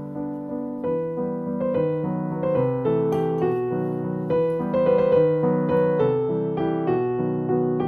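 Background music: a light piano tune playing, its notes picking up pace about a second in.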